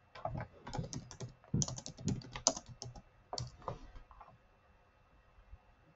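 Typing on a computer keyboard: a quick, irregular run of keystrokes for about four seconds, then it stops.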